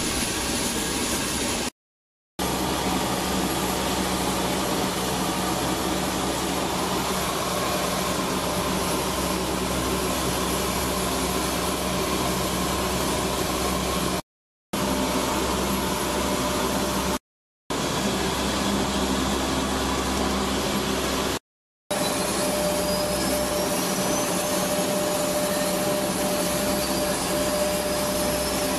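Steady drone of a C-130 Hercules's turboprop engines heard inside the cockpit, broken by a few brief silent gaps. A thin steady whine joins in over the last several seconds.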